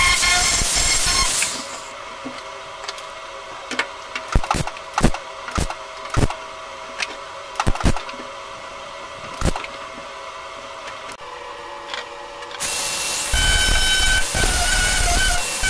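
Angle grinder running on the steel door skin for the first second and a half. Then a string of about ten short, sharp bursts as a small steel patch is tack-welded into the rusted-out hole by the van door's handle. About thirteen seconds in the grinder starts again with a steady whine, grinding the fresh welds down.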